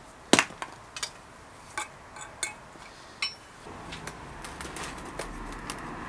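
Light, sharp metallic clicks and taps, irregularly spaced, from work on a bicycle's steel stem and headset; the loudest comes about a third of a second in. From a little past halfway the clicks give way to a low, steady background with a few small clicks.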